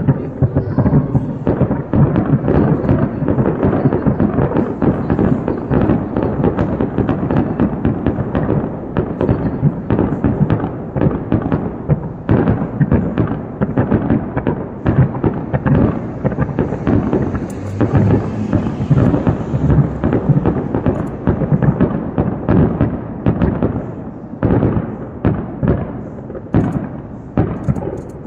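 Aerial fireworks show: a dense, rapid barrage of bursts and booms, with a crackling hiss about two-thirds of the way through. Near the end the bursts come further apart.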